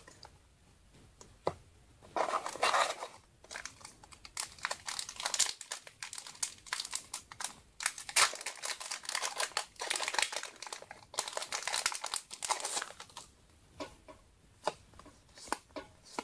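A Yu-Gi-Oh booster pack wrapper being torn open and crinkled for about ten seconds, with a few small clicks of cards being handled before and after.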